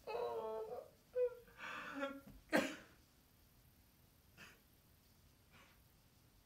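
A man sobbing and moaning without words: a wavering moan at the start, two shorter cries, then a sharp, noisy breath, the loudest sound, about two and a half seconds in, followed by two faint breaths.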